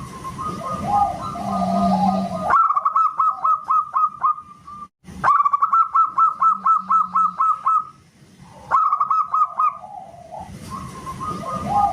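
Zebra dove (perkutut) song: phrases of rapid, evenly repeated cooing notes, about six a second, with lower warbling coos between them. The phrases start and stop abruptly, as in a looped training recording.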